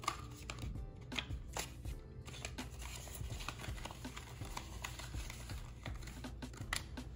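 Paper bills and plastic zipper envelopes being handled: scattered rustles and light clicks, the sharpest just after the start, around a second and a half in, and near the end, over quiet background music.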